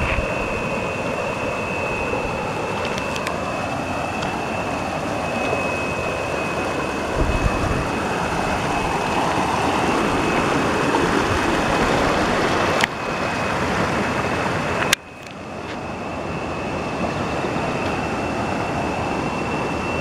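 River water rushing over rock ledges and small cascades: a steady, even rush, with a thin steady high tone above it. The rush drops away suddenly about fifteen seconds in and builds back up.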